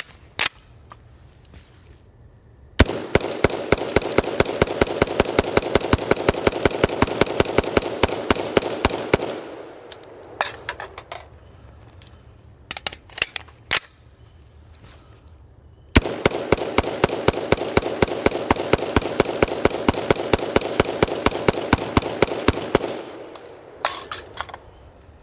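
BCM 5.56 AR-15 rifle firing two long strings of rapid, evenly spaced shots, each lasting about six to seven seconds, with short handling clacks in the gap between them. The rifle is being run hot, uncleaned and unlubricated, and it keeps cycling without a stoppage.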